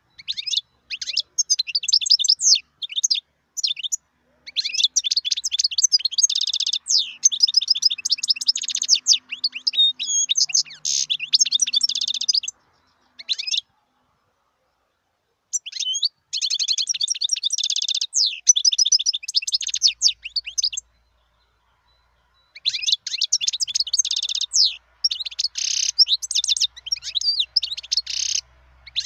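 European goldfinch singing: fast runs of twittering, tinkling notes and trills in bursts of several seconds, broken by two short pauses, near the middle and about three-quarters of the way in.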